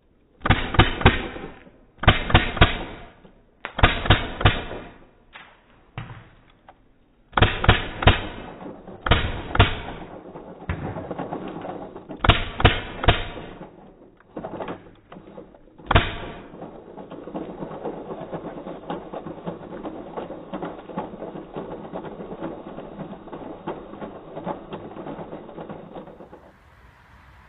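Empire D*Fender paintball marker firing in rapid bursts of shots, about seven bursts with short pauses between them, followed by a steady rushing noise lasting about ten seconds.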